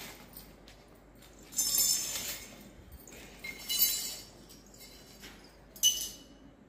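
Miniature stainless-steel toy utensils clinking and rattling as they are taken out of a plastic bag and set down, in three short bursts, the last with a brief metallic ring.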